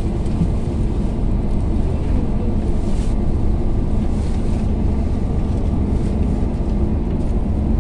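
Airliner cabin noise: a steady low roar from the running engines and air around the cabin.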